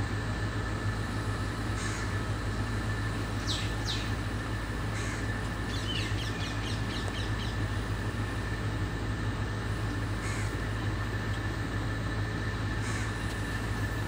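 Crows cawing in a tree, one short harsh call every two to three seconds. Two quick falling shrieks come about three and a half seconds in, and a run of rapid chirping calls around six to seven seconds in, all over a steady low hum.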